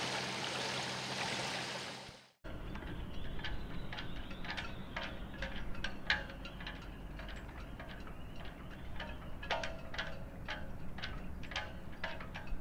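Light, irregular clinks and taps, several a second, over a low rumble, typical of a sailboat lying at anchor. They follow a brief steady rush of water and a motor hum that fades out about two seconds in.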